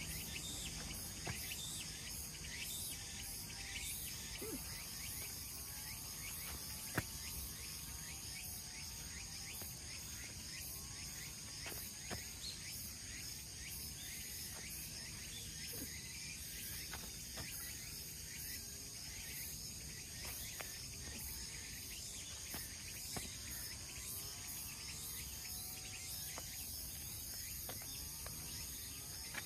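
Steady high-pitched chorus of insects, with a single sharp click about seven seconds in.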